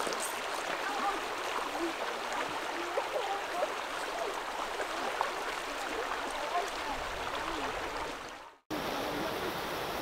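River water flowing over a shallow rocky riffle, a steady rushing hiss. It fades out and cuts off shortly before the end, then a similar outdoor ambience resumes.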